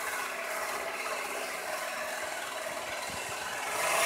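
Saw cutting into a tree branch, a steady, continuous mechanical noise.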